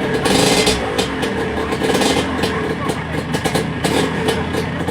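Yamaha DT125 two-stroke single-cylinder motorcycle engine running loud and being revved, with a louder surge of revs about half a second in.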